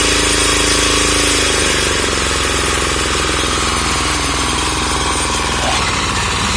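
Single-cylinder diesel engine of a two-wheel tractor converted into a grass cutter, running steadily on a test run after fuelling. It eases off slightly about two seconds in.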